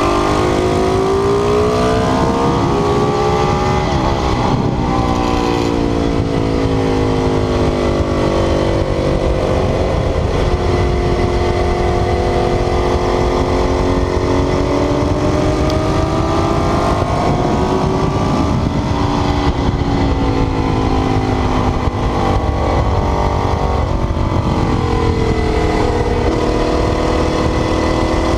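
Ducati 848's L-twin engine running hard at speed, its pitch climbing and falling again and again as it revs up through the gears and drops back, under a heavy rush of wind noise.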